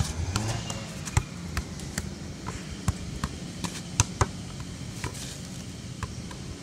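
Light, sharp taps of a shoe kicking a ball in seated left-foot juggling, about two or three touches a second, thinning out after about four seconds as the ball gets away and bounces.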